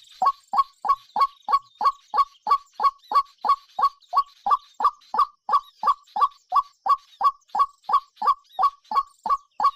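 A bird-like call repeated evenly, about three notes a second, each a short note that drops sharply in pitch; it starts a moment in after a brief quiet.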